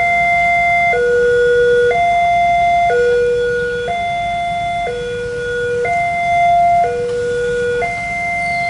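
Railway level-crossing electronic warning alarm of the Indonesian type, sounding a two-tone high–low signal that alternates about once a second. It means the crossing is active, with the barriers down and a train on the way.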